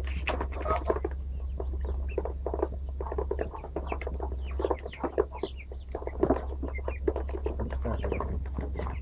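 Chickens clucking, amid a dense run of short clicks and taps.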